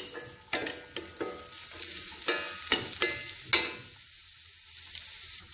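Spatula scraping and knocking against a frying pan as chopped vegetables with egg and garlic are stir-fried in oil, each knock ringing briefly, over a steady high sizzle. The strokes stop about three and a half seconds in, leaving only the sizzle.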